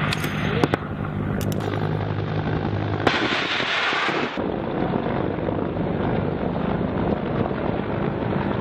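Steady aircraft engine rumble during a live-fire run, with a few sharp cracks in the first second and a louder rushing burst lasting just over a second, about three seconds in.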